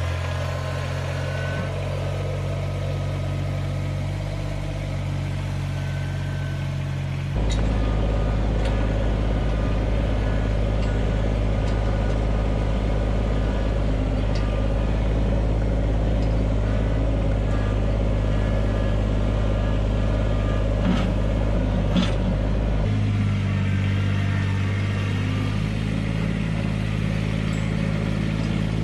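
Compact tractor engine running steadily as it carries a loaded front-loader bucket, its hum changing suddenly in tone about seven seconds in and again near the end, with a few light knocks in the last third.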